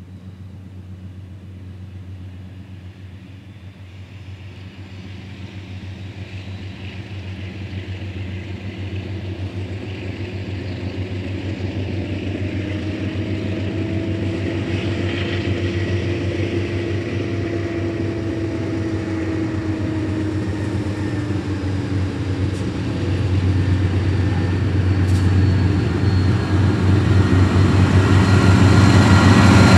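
Two Amtrak Genesis diesel-electric locomotives approaching with a passenger train: a steady low diesel drone that grows louder and louder as they close in, passing close by near the end, when high wheel squeal from the curve joins in.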